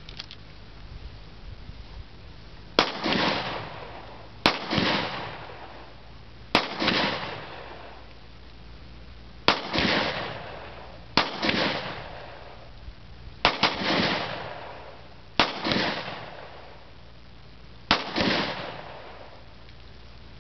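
About eight single gunshots fired one at a time at an uneven pace, a second or two apart, each crack followed by a long echo rolling away over about a second.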